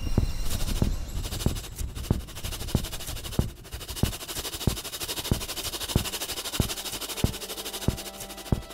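Soundtrack percussion: a slow, steady beat of sharp thuds, about three every two seconds, over a hissing, rustling noise. A sustained tone comes in near the end.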